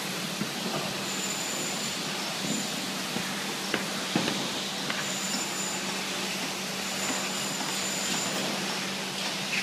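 Building-site noise: a steady machinery hum under a constant hiss, with an on-and-off thin high whine and a couple of sharp knocks about four seconds in.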